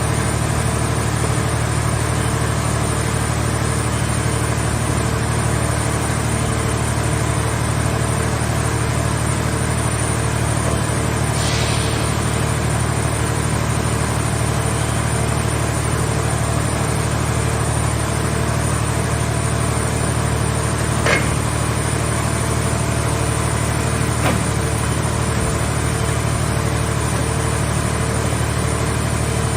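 Scrap car shell baler's engine and hydraulic power unit running steadily with a constant hum and whine. A short hiss comes about a third of the way in, and two sharp metallic knocks come later.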